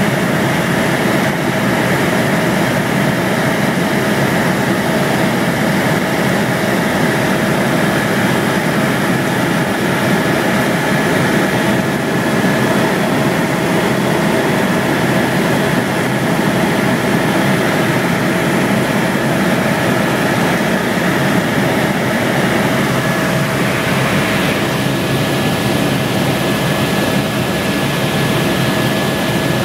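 Helicopter running steadily in flight: a loud, even engine and rotor noise with a constant high whine.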